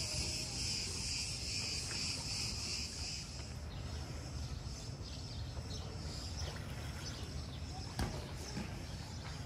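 Cicadas buzzing in a steady high-pitched drone that fades away about three and a half seconds in, over a low outdoor rumble. A single sharp click comes about eight seconds in.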